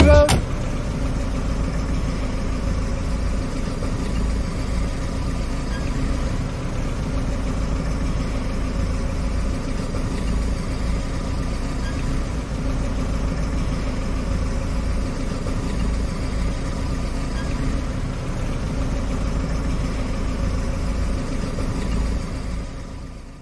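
A steady low mechanical hum and rumble, unchanging throughout and fading out near the end.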